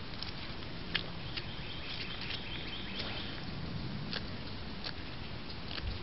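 Scattered light clicks and rustles in dry undergrowth as a white-tailed deer steps up close, over a steady hiss. A short, high bird trill comes about two seconds in.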